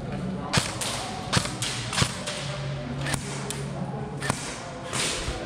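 Airsoft guns firing, sharp single pops at irregular intervals, about ten in five seconds.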